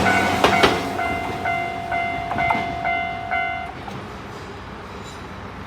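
Japanese railway level-crossing alarm ringing in quick repeated electronic dings, with a train's last few wheel clacks over the rail joints in the first second. The alarm cuts off nearly four seconds in, once the train has cleared the crossing.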